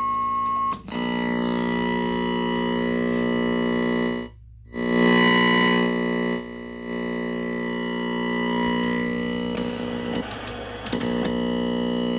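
Steady, loud buzz with many even overtones from a vintage Zenith tube TV's speaker. It cuts out for about half a second about four seconds in, dips again shortly after, and wavers with some noise around ten seconds in.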